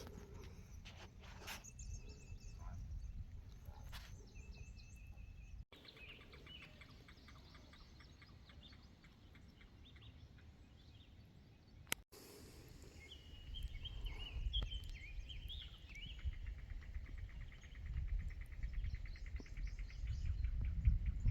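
Wind rumbling on the microphone, growing stronger in the second half, with birds chirping and calling and fast insect-like trills over it.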